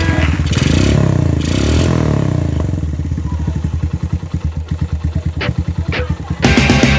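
Suzuki Thunder 125 single-cylinder four-stroke engine, swapped into a GP100 motorcycle, running: a couple of brief throttle blips, then it drops back to an even, pulsing idle. Music with guitar comes in near the end.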